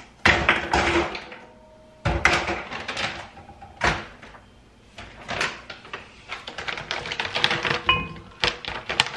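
Kitchen handling noises: scattered knocks and rustles, then a dense rattling clatter over the last few seconds as frozen strawberries tumble out of a plastic bag into a glass blender jug.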